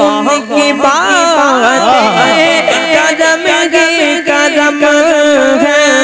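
Male voice singing an Urdu naat through a microphone, in long ornamented runs that slide up and down in pitch, over a steady low held tone.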